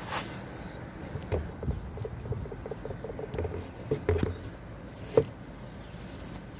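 A short hiss, then a scattered run of small clicks and taps from hands handling things, the sharpest click about five seconds in.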